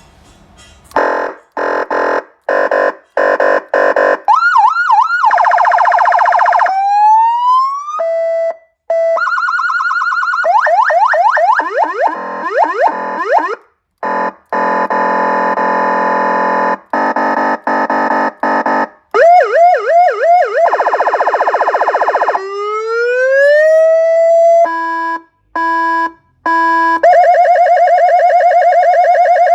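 A Federal Signal AS720 200-watt electronic siren, loud, cycling through its sound patterns. Starting about a second in, it plays short pulsed beeps, fast yelping warbles, steady held tones, slow rising wails and alternating two-tone beeps, each pattern lasting a few seconds before switching to the next.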